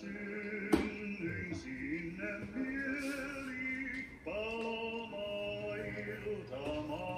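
A man singing a Finnish song over backing music, with one sharp knock about a second in.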